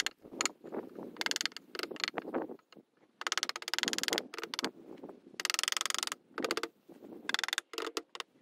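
Cordless drill-driver driving screws into wooden boards, in a series of short runs, most under a second and one of about a second, with pauses between them.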